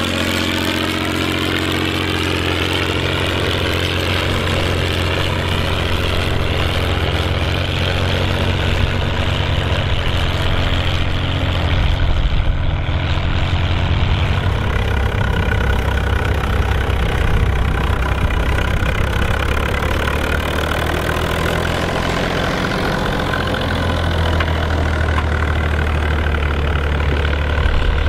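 Tractor diesel engines working under load while ploughing. First an Ursus C-1201 pulls past, then, after a change about halfway through, a red tractor with a mounted plough runs steadily.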